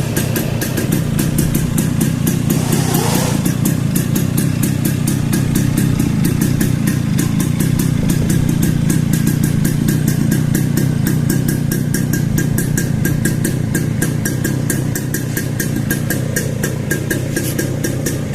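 Two-stroke engine of a home-built chopper motorcycle idling steadily, with an even, rapid popping.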